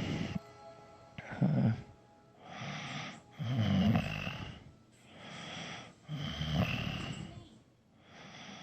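A man snoring in deep sleep: three loud, rattling snores about two and a half seconds apart, with quieter breaths between them.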